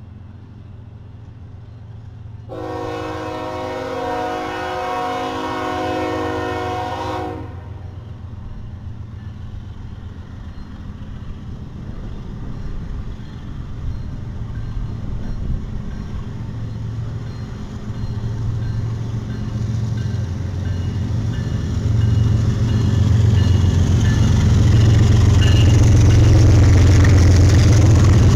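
BNSF freight train's diesel locomotives approaching and passing close by. A long multi-note horn blast sounds about two seconds in and lasts about five seconds, then the engines' low drone grows steadily louder as the locomotives come alongside.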